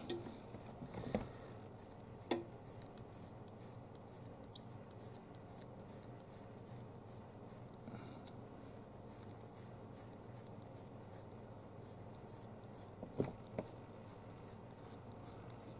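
Thumb rubbing leftover adhesive off an iPhone 7 LCD's polarizer film: a steady run of faint, quick scratchy strokes, with a few louder ticks near the start and again about thirteen seconds in.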